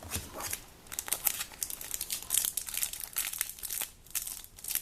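Foil trading-card sachet crinkling and crackling in the hands with many quick, irregular crackles, as a pack of football cards is handled and opened.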